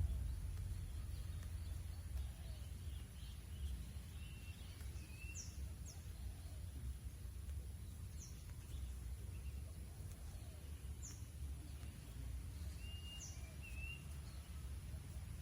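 Outdoor ambience: a steady low rumble with scattered short, high chirps from small birds, about half a dozen falling chirps spread through it.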